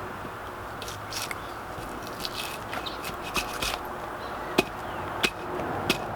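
Seasoned bark being chipped and pried off a log: irregular sharp cracks and taps, a few louder snaps in the second half, over a steady low background noise.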